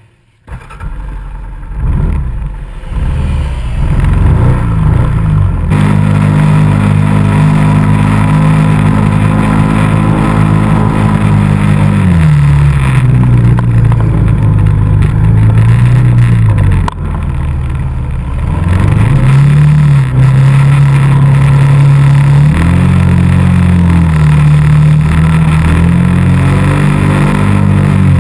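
ATV engine running under throttle, its pitch rising and falling as the rider speeds up and eases off, with a short dip in loudness about 17 seconds in.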